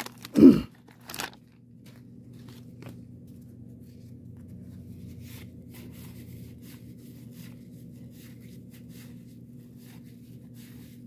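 A wax-paper card pack wrapper crinkling and tearing in the first second or so, with a brief loud thump, then soft, sparse rustles and ticks of cardboard baseball cards being thumbed through one by one over a steady low hum.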